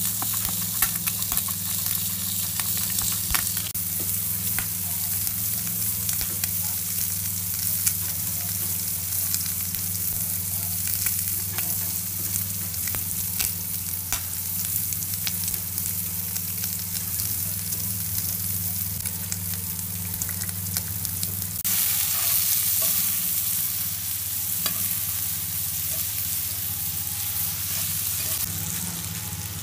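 Beef and sliced onions frying in butter in a frying pan: a steady sizzle with scattered crackles, which grows louder and brighter about three-quarters of the way through.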